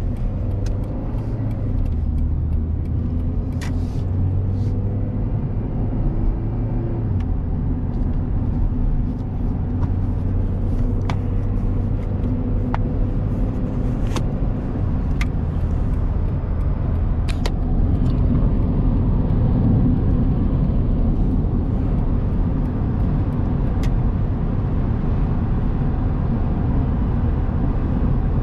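Steady low rumble of a 2000 Honda Accord LX on the move, heard from inside the cabin: its 2.3-litre four-cylinder engine and road noise. A few short sharp clicks come through here and there.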